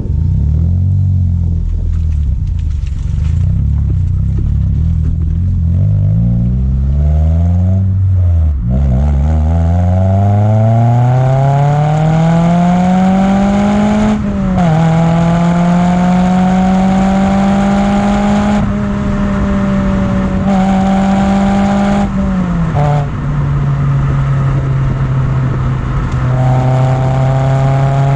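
Toyota Yaris T-Sport 1.5-litre four-cylinder engine through a TRD header and Fujitsubo rear box exhaust, warm. It is blipped up and down a few times, then revs up in one long smooth climb, drops suddenly about 14 seconds in, holds a high steady speed, and settles to a lower steady speed near the end.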